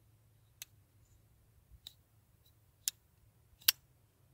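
Gray-handled Civivi folding knife being flicked open and closed, giving four sharp metallic clicks about a second apart, the last the loudest.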